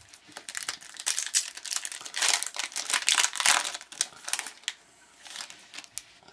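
Foil wrapper of a hockey card pack crinkling as it is opened by hand and the cards are pulled out. The crackling is densest in the middle and thins to a few light clicks near the end.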